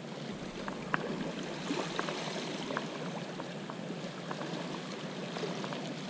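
Seawater lapping and trickling over jetty rocks: a steady wash with small scattered splashes.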